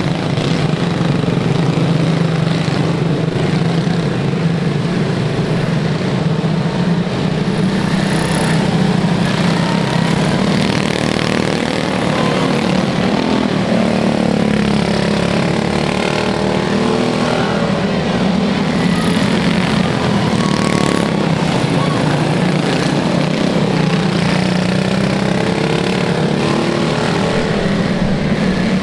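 Quarter-midget race cars' small single-cylinder engines running at speed on a dirt oval, a steady engine drone with the pitch sweeping up and down a couple of times as they lap.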